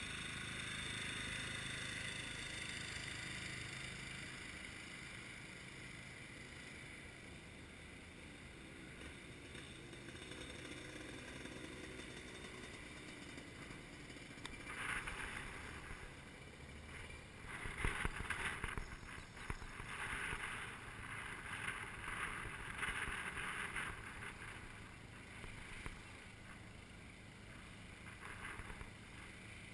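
A shifter kart engine fades away over the first few seconds. After a quieter stretch come irregular bursts of rushing noise, loudest about 18 seconds in.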